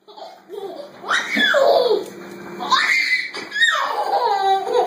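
Baby squealing with laughter: three high shrieks, each falling in pitch, about a second apart, then a short stuttering laugh near the end.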